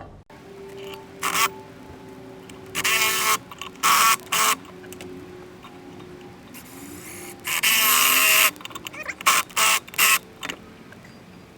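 Irregular short bursts of clinking, scraping and rattling from metal tools and puller parts being handled, as a harmonic balancer puller is fitted and bolted onto an outboard motor's flywheel; two longer bursts come about three seconds in and near eight seconds in.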